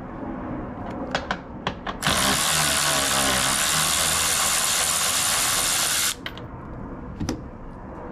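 A few sharp clicks, then a cordless power tool runs steadily for about four seconds and cuts off suddenly, spinning out a bolt that holds the rear seat to the floor.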